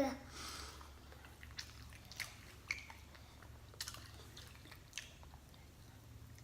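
A person chewing fast food close to the microphone: faint, short mouth clicks and smacks at irregular intervals, about half a dozen in all.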